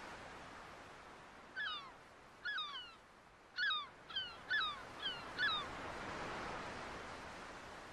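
A bird giving a quick series of about eight short, harsh calls, set over the slow swell and fade of surf.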